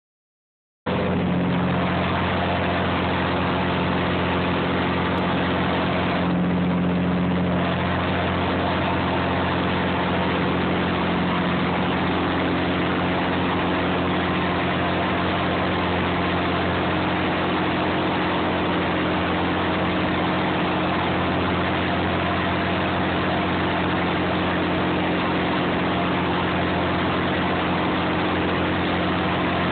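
Clam boat's engine running steadily, a loud unbroken drone with a low hum.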